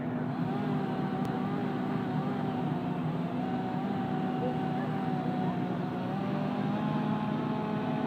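Fire engines idling at the scene: a steady low diesel engine drone, with a thin wavering tone above it.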